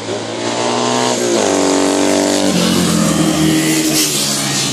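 Café racer motorcycles accelerating flat out in a drag sprint. The engine note climbs, then drops sharply about two and a half seconds in as the bikes pass close by.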